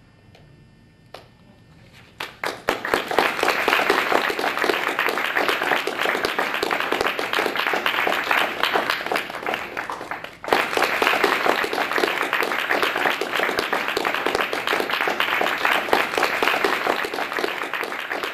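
Audience applauding, starting about two seconds in after a short quiet, with a momentary break about ten seconds in.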